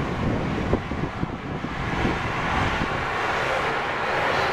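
Steam locomotive approaching slowly, with low, irregular chuffs in the first second or so and a hiss of steam from its open cylinder drain cocks growing louder toward the end.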